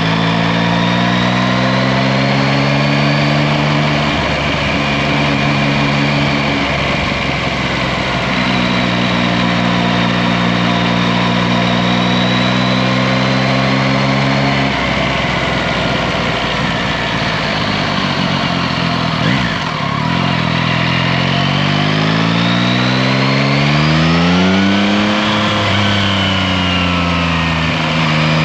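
Yamaha Tracer 9 GT's three-cylinder engine running at steady revs under heavy wind and tyre rush. Its note fades out twice and then, in the last third, rises, falls and rises again.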